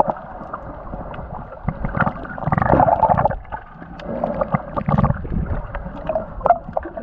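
Muffled water gurgling and sloshing in irregular surges, with scattered small clicks and nothing heard above the low and middle range.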